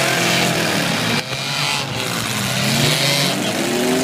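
Several demolition derby cars' engines revving at once, their pitch rising and falling over a constant rumbling noise, with a brief dip about a second in.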